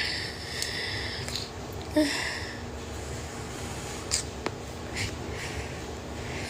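A person sniffing twice through a stuffy nose, a long sniff then a shorter one, with a few light clicks. The host has a cough and cold.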